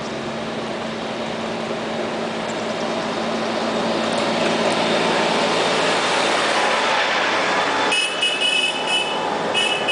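Compact farm tractor with a front loader driving past, its engine growing louder as it approaches and passes, then dropping away suddenly. Near the end a high squeal comes in short pulses.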